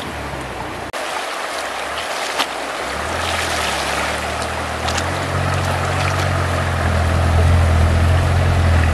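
Shallow river rushing over stones. A steady low rumble builds underneath from about three seconds in.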